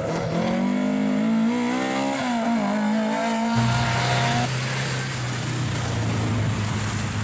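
Rally car engine accelerating hard, its pitch climbing, dipping at a gear change, then climbing again. About three and a half seconds in, the sound switches to a rally car running at a steady engine note under a broad hiss of spray as it splashes through standing water.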